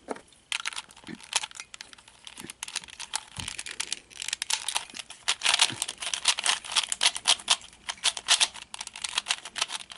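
DianSheng 3x3 plastic speedcube being turned by hand: a run of light clicks and clacks as its layers rotate, a few scattered turns at first, then a fast, steady stream of turns from about halfway.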